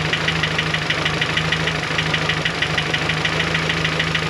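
Boosted engine idling with a fast, even ticking, about eight ticks a second. It is the cold-idle tick from the cylinder head that goes away once the engine warms up, which the owner wonders may be his belt.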